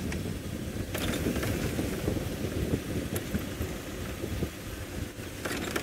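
Open safari vehicle driving along a sandy dirt track: a steady low engine and tyre rumble, with a few sharp knocks and rattles as it goes over bumps.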